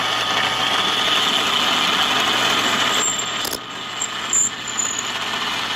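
Power drill running with a split-point high-speed steel bit grinding into ceramic tile; the drilling stops about three and a half seconds in, followed by a light knock.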